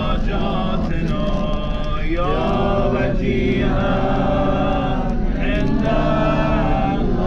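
A voice chanting a slow devotional lament in long held notes that slide up and down between phrases, over a steady low rumble.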